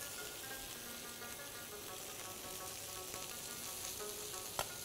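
Head-on prawns sizzling steadily as they sear in a nonstick frying pan, with one light click near the end.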